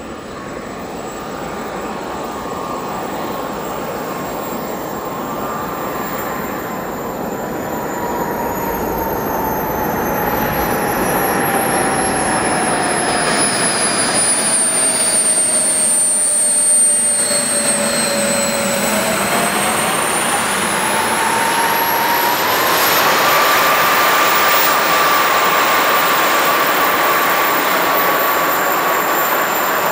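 Four JetsMunt M166 model jet turbines of a 1/13-scale RC Airbus A380 running with a whine over a steady rush, getting louder throughout. The whine sinks slowly as the turbines spool down, then climbs again a few seconds later and holds at a higher pitch as they spool back up.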